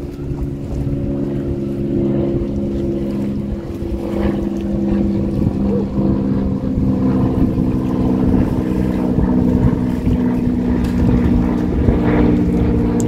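Motorboat engine running steadily, its pitch shifting a little twice, with wind buffeting the microphone.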